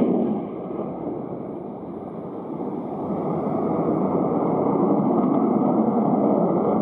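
Jet roar of a Japan Air Self-Defense Force F-15's twin F100 turbofan engines as the fighter banks through a display turn overhead. The roar drops back a little about half a second in and builds up again over the next few seconds.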